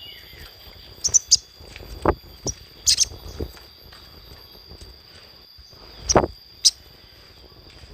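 Crimson sunbird (sogon) giving short, sharp high chirps, a pair about a second in, then singles around 3 s and twice after 6 s, over a steady high tone; a few dull thumps come between the chirps, the loudest just after 6 s.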